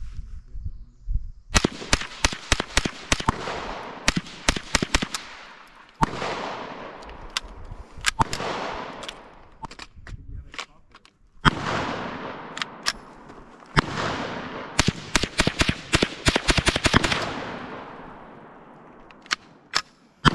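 Ruger 10/22 Takedown semi-automatic .22 rifle fired in quick strings of shots, several a second, each crack trailed by a long echo. There are short pauses between the strings.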